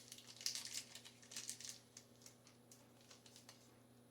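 Plastic candy-bar wrapper crinkling faintly as it is handled and opened, in a run of rustles over the first two seconds, then a few soft ticks.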